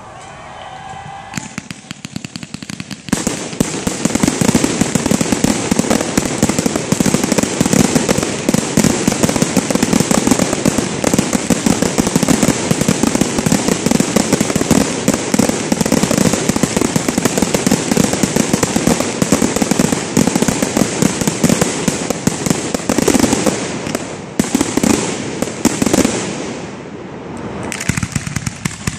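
Aerial fireworks shells going off in a rapid, continuous barrage of bangs and crackle. It builds up over the first few seconds and eases off briefly near the end.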